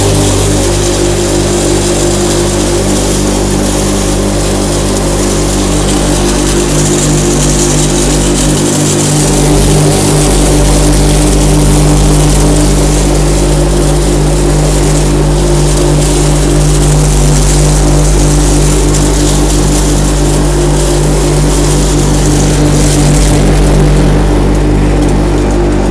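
Electric grain crusher with a 22 kW motor running steadily while grinding grain into meal: a constant motor hum over loud grinding noise.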